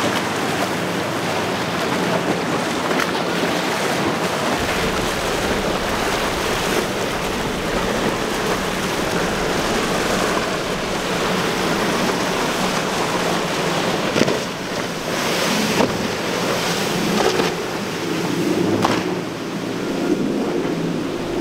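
Outboard-engined center-console boats running at speed through rough inlet water: a steady engine drone under the rush of waves and spray, with wind buffeting the microphone and a few louder gusts near the end.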